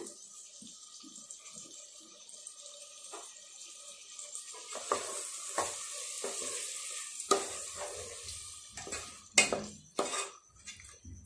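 Chicken masala sizzling in a nonstick pot as curd is stirred into it with a spatula. The sizzle grows stronger midway, with scraping throughout and a few sharper knocks of the spatula against the pot near the end.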